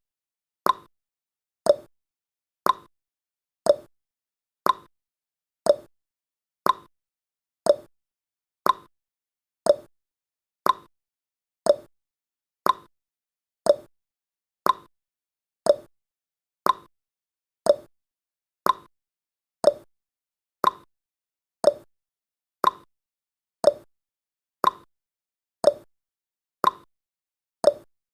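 Clock-tick sound effect of a countdown timer, one sharp tick each second, evenly paced.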